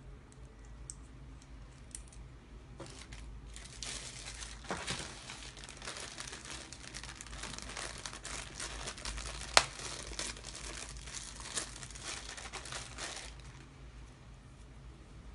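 Clear plastic packaging bag crinkling and rustling as hands handle and open it, for about ten seconds, starting about three seconds in. One sharp click stands out partway through.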